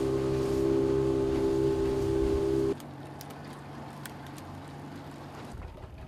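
Small boat's outboard motor running steadily under way, a constant engine hum with wind and water noise. About three seconds in the level drops sharply and the hum goes on more quietly.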